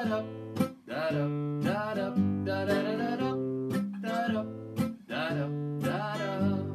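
Classical guitar strummed in a steady rhythm, with a man's voice singing along over the chords.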